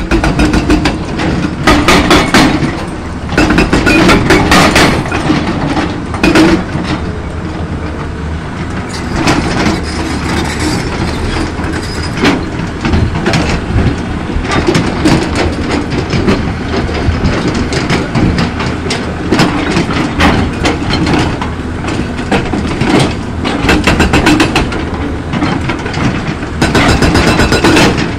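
Hydraulic rock breaker on a Volvo excavator hammering boulders in repeated bursts of rapid blows, each burst lasting a second or two, with the excavator's diesel engine running steadily between bursts.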